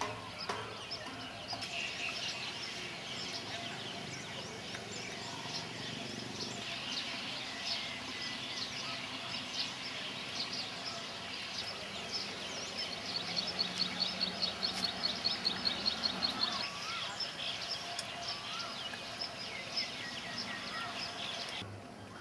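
Many birds chirping and calling together in a dense, steady chorus. In the second half one bird sings a fast trill of repeated high notes for a few seconds, the loudest sound here.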